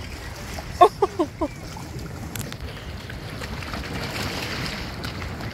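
Wind noise on the microphone, with four quick chirps falling in pitch about a second in, then a hooked fish splashing at the water's surface from about three and a half seconds.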